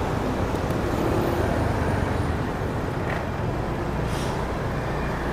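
Steady city road traffic: a continuous mix of engines and tyres from passing vehicles.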